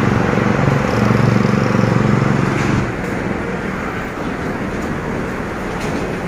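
City road traffic: a steady wash of engines and tyres. A low engine drone is loudest for about the first three seconds, then eases off.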